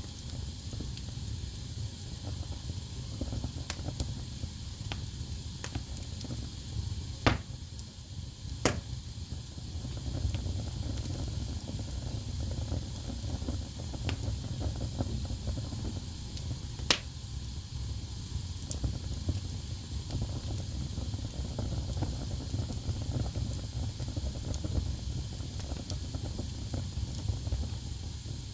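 Wood fire burning in a fireplace: a steady low rumble and hiss from the flames, with scattered small crackles. Three sharp pops stand out, two close together about a quarter of the way in and the loudest a little past halfway.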